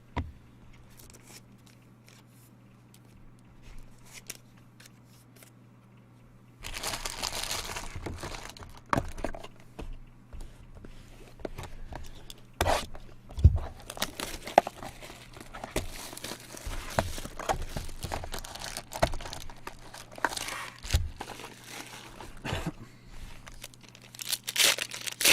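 Plastic wrapping on a box of baseball cards being torn open and crumpled, with sharp crinkling snaps. It starts about six seconds in, after a quiet stretch of light handling clicks.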